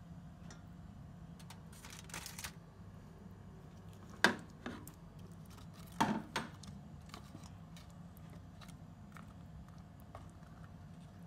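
Kitchen tongs clacking against a stainless steel pot while chicken pieces are dipped in sauce: a few sharp clicks, the two loudest about four and six seconds in, with small taps and a brief rustle between.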